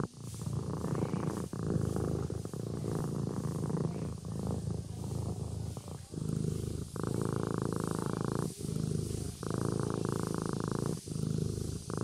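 A sleeping kitten purring steadily. The purr runs in breath-long stretches, with a brief dip between breaths every two seconds or so.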